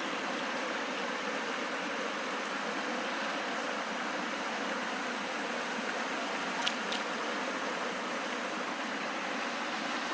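Valley stream flowing steadily, an even rush of water noise, with two brief clicks about seven seconds in.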